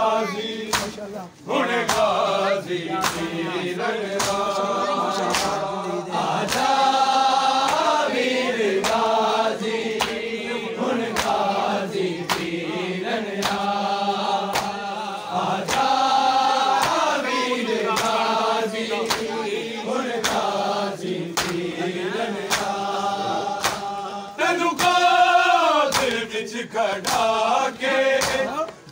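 A group of men chanting a noha (Shia lament) in unison, with a steady beat of hand slaps on bare chests (matam), about one and a half slaps a second.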